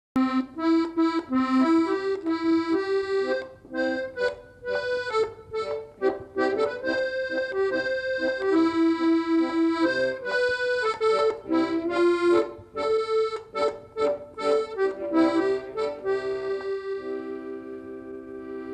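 Accordion playing a shanty melody in short and held notes, ending on a long chord that fades out near the end.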